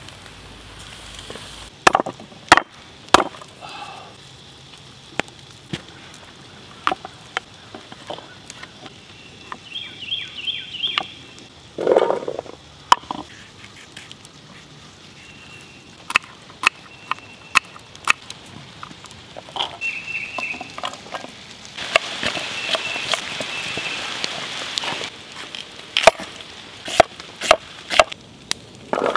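Knife and cleaver chopping vegetables on a shelf-fungus cutting board set on a rock: sharp knocks at irregular intervals.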